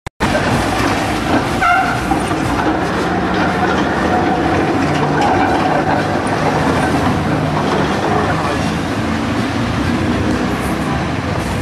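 Tram running on its rails: a steady wheel-and-motor noise, with a brief higher tone about two seconds in.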